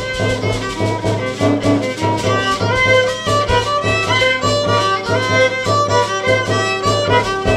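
Raramuri (Tarahumara) violin music: a fiddle playing a melody over a steady low beat.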